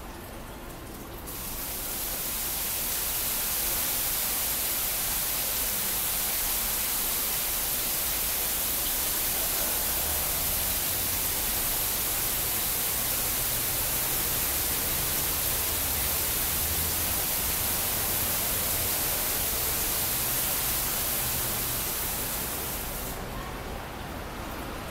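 Water-curtain fountain: columns of water droplets falling from a bar of nozzles into the shallow basin below make a steady hiss. The hiss starts about two seconds in and dies away near the end as the curtain stops.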